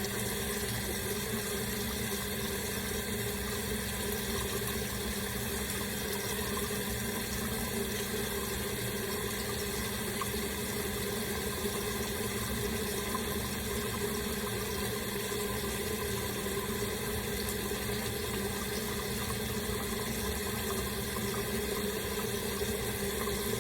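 Tap water running steadily.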